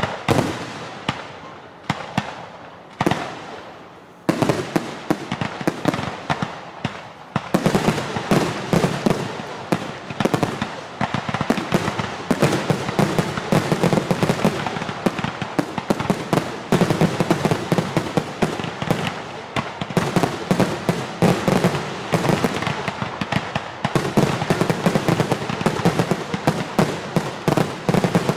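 Aerial fireworks shells bursting: a few separate booms, then from about four seconds in a dense, continuous barrage of rapid bangs.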